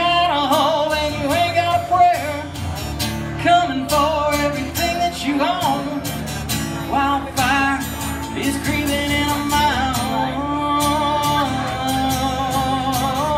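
Acoustic guitar and pedal steel guitar playing a country song live, the pedal steel sliding into and between long held notes.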